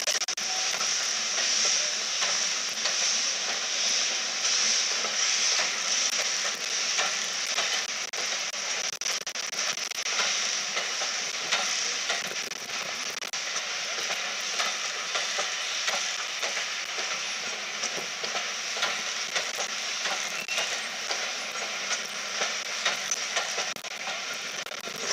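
A rake of Mk1 passenger coaches rolling slowly past over the station pointwork: the wheels tick and knock over rail joints and points amid a steady high hiss.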